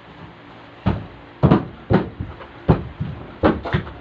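A series of six irregular thumps, spaced about half a second to a second apart.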